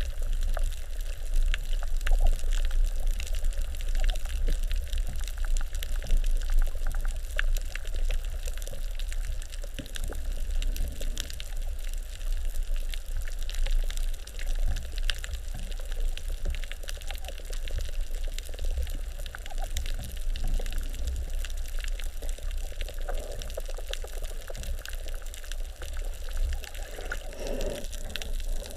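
Underwater ambience picked up by a camera below the surface: a steady low rumble of water with constant fine crackling and clicking.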